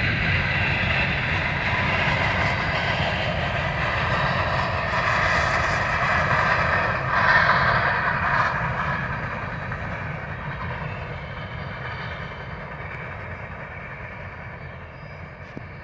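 Empty coal hopper cars of a freight train rolling past, a steady noise of steel wheels on the rails. It is loudest about seven seconds in, then grows fainter over the second half.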